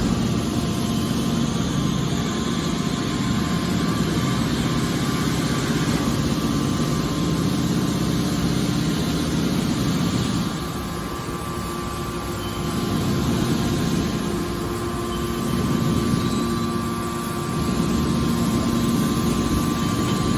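Heavy scrap-metal baling machinery running: a continuous mechanical drone with a few steady tones in it. It drops somewhat in level a little past halfway through, then comes back up.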